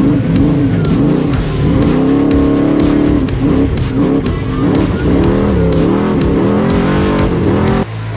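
Off-road race truck engine revving hard, its pitch rising and falling again and again as it accelerates along a dirt course. The sound cuts off abruptly near the end.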